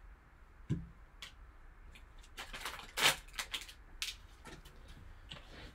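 Handling of trading cards and their packaging: scattered light clicks and a short crinkly rustle about two and a half seconds in, loudest near three seconds.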